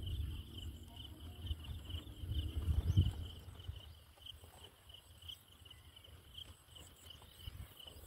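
A cricket chirping steadily in quick, even pulses, with a low rumble that swells about three seconds in and then fades.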